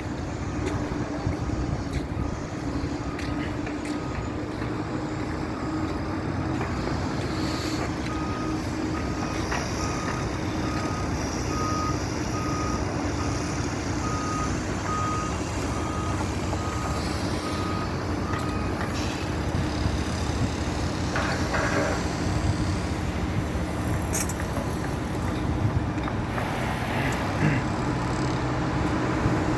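Steady mechanical hum of a running vehicle engine, with a reversing alarm beeping about once a second from several seconds in until about two-thirds of the way through.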